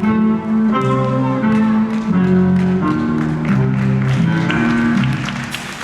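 Loud show music playing held chords that change about every second, fading near the end as audience applause starts up.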